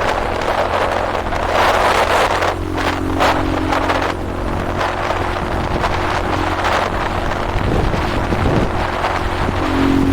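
KTM 500 EXC-F single-cylinder four-stroke dirt bike engine running steadily while riding, with wind buffeting the microphone in gusts.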